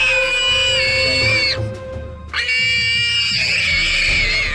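Two long, high-pitched distress screams from a prey animal caught by a leopard. The second scream starts about halfway through. Under them runs background music with a steady held note.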